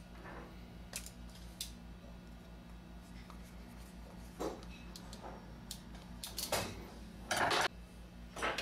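Hand tools working the cap screws on a Columbia automatic taper's head as they are tightened down: scattered light metallic clicks and short scrapes, with a longer scrape about seven seconds in, over a steady low hum.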